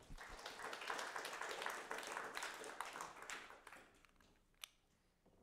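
Lecture audience applauding, fading away after about four seconds, with one sharp tap near the end.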